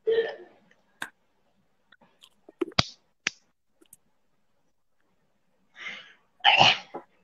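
Short bursts of laughter and breath, with a few sharp clicks in between and the loudest bursts near the end.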